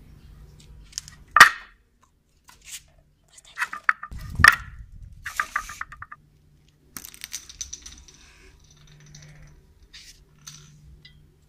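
Small objects cracking and crunching as a bicycle tyre rolls over them on concrete: a single sharp crack, then bursts of crackling with one heavier thump, and a few faint clicks near the end.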